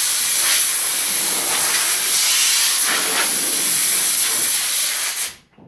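Compressed-air blow gun hissing steadily as it blows sanding dust off a table saw top, then cutting off sharply near the end.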